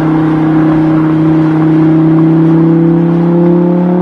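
Toy supercar's engine-like drone, a steady buzzing hum that rises slightly in pitch near the end.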